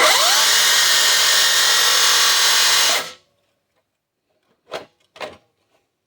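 Milwaukee M18 cordless 8-inch metal-cutting circular saw starting up with a quick rising whine and running loud and steady for about three seconds, then shut off. A few light clicks follow.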